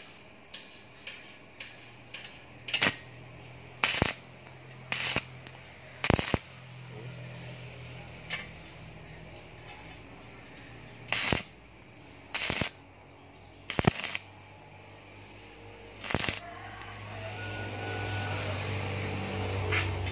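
Stick welder striking tack welds that join a steel wire shelf ring to square steel tube legs: eight brief bursts, each under half a second, with pauses between them.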